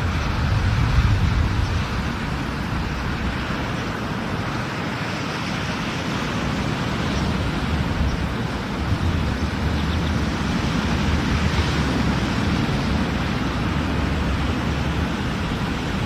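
Steady rushing noise of wind on the microphone and surf on a beach, with gusty low rumbling.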